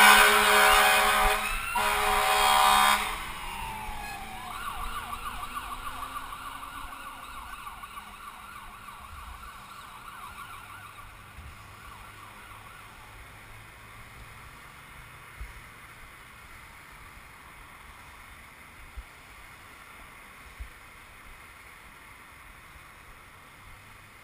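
Ambulance horn sounding in two loud blasts, then its siren yelping in fast repeated rising sweeps that fade away over several seconds as it moves off. After that only faint traffic and wind noise remain, with a few light knocks.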